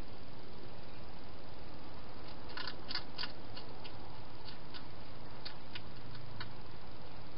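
Wild hedgehog crunching dry food inside a plastic feeding box: scattered sharp clicks, with a quick cluster of them about two and a half to three seconds in, over a steady hiss.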